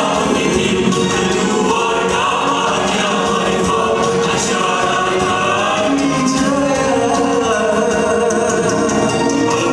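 Nasyid vocal group singing in close harmony, several voices layered at once.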